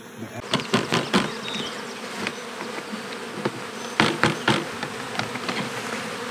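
A honeybee colony buzzes steadily. Over it come hard knocks from the emptied plastic nuc box being handled and knocked against the hive, a quick run of them under a second in and three more about four seconds in.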